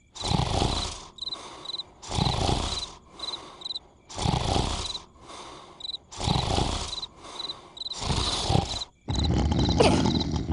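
Cartoon snoring: a loud rasping snore about every two seconds with a softer breath between, over steady cricket chirps. About nine seconds in, the snoring runs together into a continuous, louder noise.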